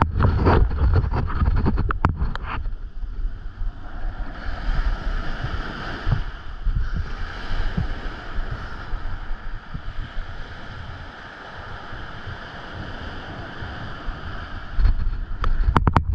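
Wind buffeting the camera microphone over the wash of surf on the beach. Knocks and rubbing from the camera being handled come in the first couple of seconds and again near the end.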